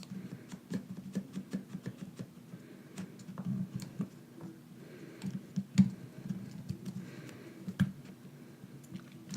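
Irregular light clicks, taps and scratches of fingers and small parts working inside an opened iPhone 6, pressing the new battery's connector back onto its socket. A faint low hum runs underneath.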